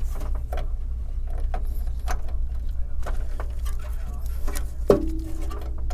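Hands in nitrile gloves handling computer cables and pushing the front-panel audio connector onto its motherboard header: light rustling and small plastic clicks over a steady low hum, with a sharper click about five seconds in followed by a brief steady tone.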